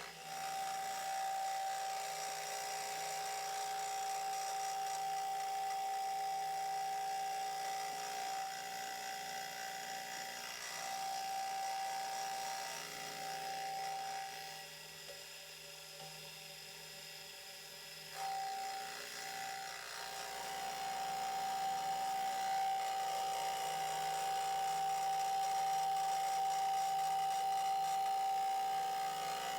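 Milling machine running with a fly cutter facing the flange of a Toyota Hilux exhaust manifold. It gives a steady high whine over cutting noise, which falls away for a few seconds about halfway through before picking up again.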